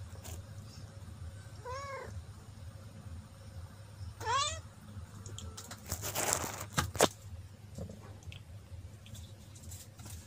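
A cat gives two short meows, each rising and falling, about two and four seconds in. About six seconds in there is a brief scuffle with a couple of sharp knocks as the cat pounces on a rat.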